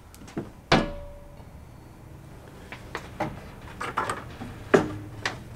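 A plastic-tanked car radiator knocking and clicking against the core support and surrounding parts as it is lowered and wiggled into place: one sharp knock with a short ring about a second in, then a run of lighter clicks and knocks, the loudest near the end.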